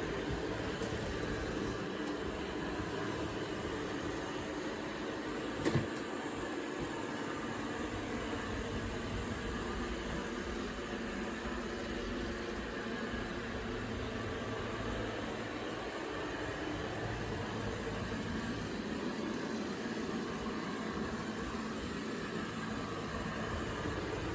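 Anker eufy robot vacuum cleaner running, a steady motor and brush hum, with one sharp knock about six seconds in.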